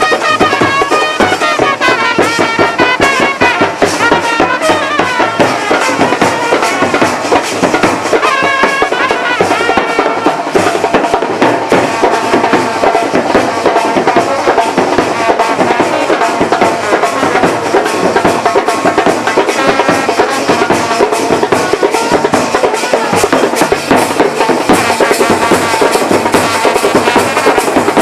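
Loud music with drums and percussion keeping a fast steady beat under a wavering melody line.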